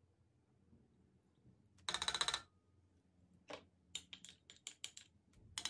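Metal teaspoon clattering and tapping against spice containers and a pot: a short, fast metallic rattle about two seconds in, then a scatter of light clicks and taps.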